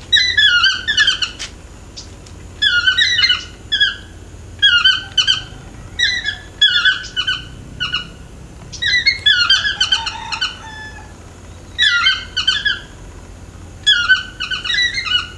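Yellow-throated (chestnut-mandibled) toucan calling: loud yelping notes in short phrases of three or four, repeated every second or two.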